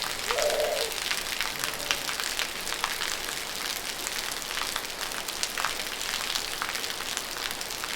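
Steady rainfall, a constant hiss with many sharp individual drops ticking throughout.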